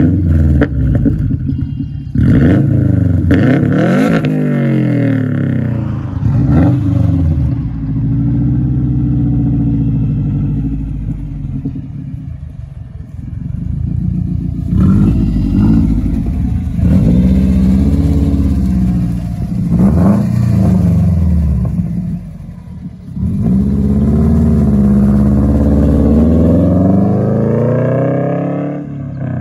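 2013 Subaru WRX's turbocharged 2.5-litre flat-four through a straight-piped exhaust, with a deep growl: revved in several quick blips, then pulling away and accelerating in long rising runs through the gears. A few sharp pops from the exhaust come with the revs.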